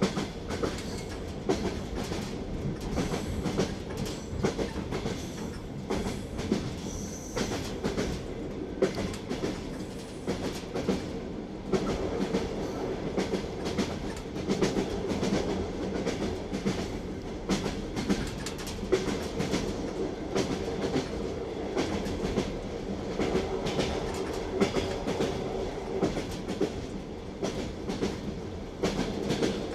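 Train wheels clattering over rail joints: a steady running rumble with many sharp clicks, the clickety-clack of a moving train.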